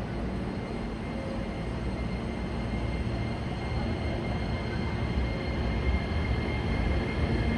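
Hankyu 9300 series electric train running slowly into a terminal platform, a steady rumble of wheels and running gear that grows louder as it approaches.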